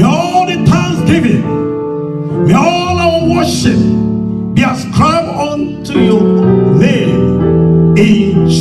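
Gospel worship song: a voice singing over sustained keyboard chords.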